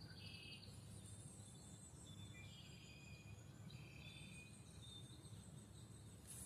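Faint outdoor nature ambience: several birds chirping and calling in short high whistles and trills, with high insect buzzing, over a steady low background rumble.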